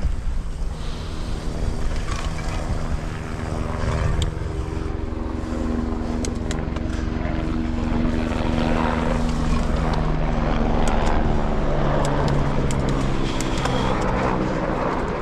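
Mountain bike riding down a rough trail: rumble and rattle from tyres and frame, scattered clicks and knocks, and wind on the camera. A steady droning hum runs under it for most of the stretch.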